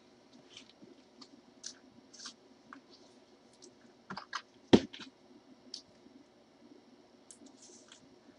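Light, scattered clicks and taps of trading-card packaging and boxes being handled on a tabletop, with one sharper knock a little under five seconds in.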